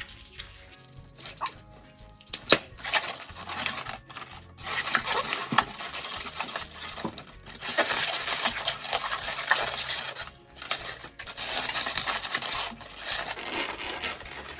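Latex modelling balloons being twisted and handled, rubbing and squeaking in long stretches, with a few sharp clicks.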